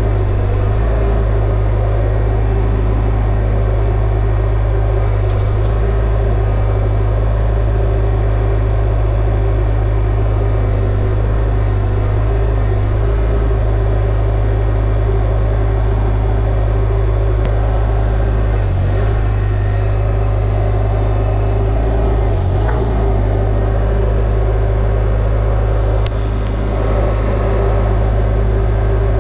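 Broderson IC-35 carry deck crane's engine running at a steady speed with a constant hum, powering the crane's hydraulics.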